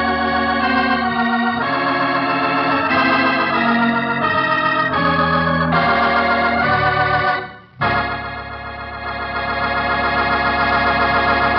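Organ music closing out the drama: a run of sustained chords that change every second or so, a brief break about seven and a half seconds in, then one long held final chord.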